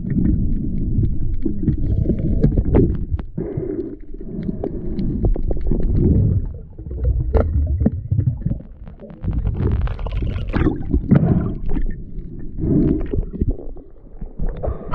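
Muffled underwater rumble and sloshing of water moving against an action camera's waterproof housing as a diver swims, in surges with scattered sharp clicks. The sound turns hissier for a couple of seconds in the second half, and a sharp click comes right at the end as the camera nears the surface.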